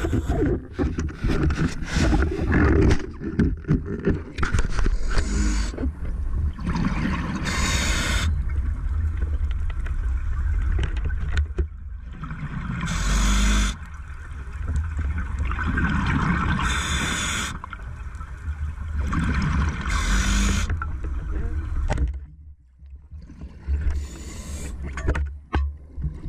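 A scuba diver's regulator breathing underwater, heard through a camera housing: a hissing burst of exhaled bubbles about every three to four seconds over a steady low water rumble. In the first few seconds there is scraping and knocking as gear is handled.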